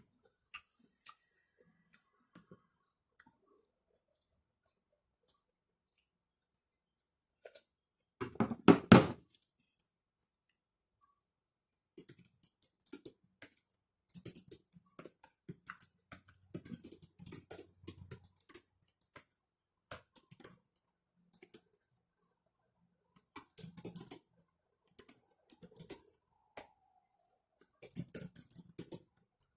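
Irregular light clicks and taps in loose clusters, with one louder clatter about eight seconds in.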